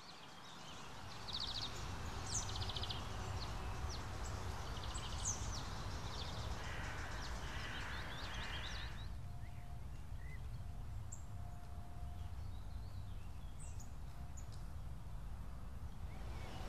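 Outdoor field ambience fading in: a low steady rumble with songbirds chirping and trilling over it, busiest in the first half and sparser after about nine seconds.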